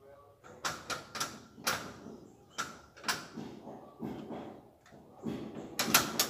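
Steel security grille door being worked by hand at its handle and the join between its two leaves: a string of irregular sharp metal clicks and knocks from the latch and the door leaves, with a quick cluster of them near the end.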